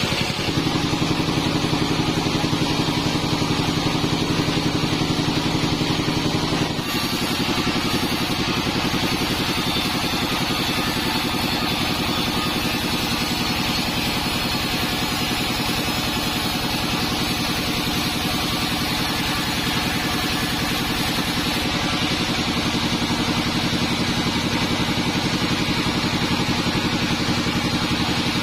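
Band sawmill machinery running steadily with a loud, engine-like drone. Its tone shifts about seven seconds in.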